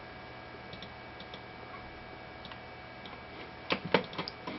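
Faint steady hum and hiss, then a quick run of sharp clicks from operating the computer, about three and a half seconds in.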